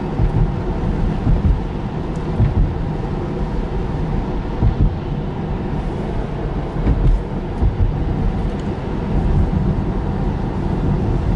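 Road noise inside the cabin of a Tesla Model 3 driving at about 39 mph: a steady low rumble from tyres and wind with no engine sound, with brief louder bumps now and then.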